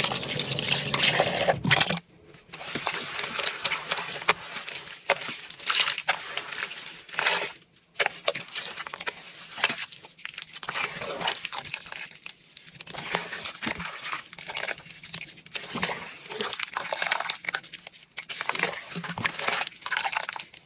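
Scrubbing a surface coated with Comet scouring powder and washing powder: irregular gritty scratching and crackling strokes. The first two seconds hold a loud steady hiss that cuts off suddenly.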